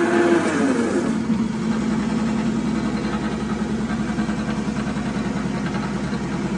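Homemade magnetic vortex prototype running: an electric motor turns copper flywheel rotors through a V-belt, giving a steady machine hum with a fast flutter. Within the first second its pitch drops, then settles.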